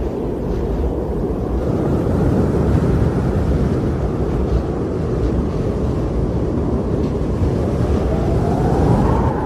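Strong wind blowing steadily with a deep rumble. Near the end a faint howling tone rises in pitch.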